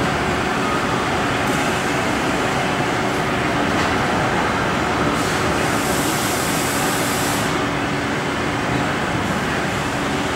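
Steady machinery noise of a car assembly line: a dense rumble and hiss with a faint steady hum, and a brighter hiss from about five to seven and a half seconds in.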